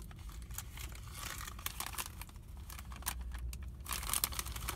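A foil-lined bag of kettle chips being pulled open by hand, its packaging crinkling and crackling irregularly, with a louder flurry near the end.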